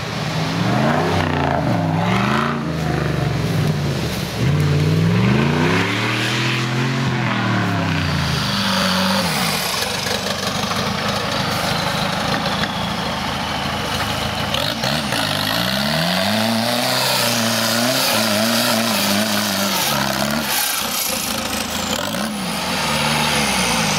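Off-road vehicle's engine revving up and down again and again, each rise and fall in pitch lasting about a second or two, with a stretch of steadier, noisier running in the middle.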